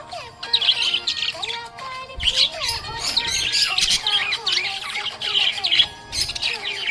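Budgerigar chirping and chattering, a busy stream of rapid high chirps and warbles with a couple of brief lulls.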